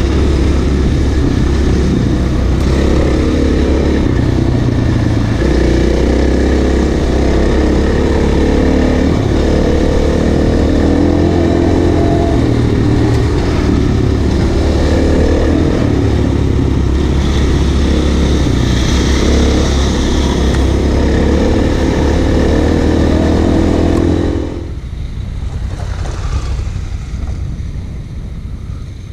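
Off-road motorcycle engine running steadily while riding, its pitch wavering a little. About 24 seconds in, the engine sound drops away sharply, leaving a quieter rushing noise.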